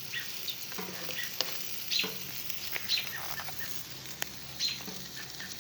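Pork chops sizzling on a grill, with a steady hiss and frequent small crackles and pops as barbecue sauce goes on them. One sharp click about four seconds in.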